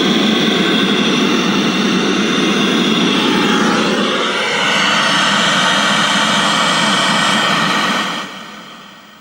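Untuned static hiss from the speaker of a 1980 Sony Trinitron KV1913 colour portable television as it powers up, a sign the set is now starting. The loud, steady hiss fades out near the end.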